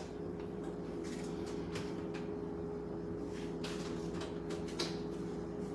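Steady low mechanical hum holding one pitch throughout, with a few faint light clicks and knocks of kitchenware.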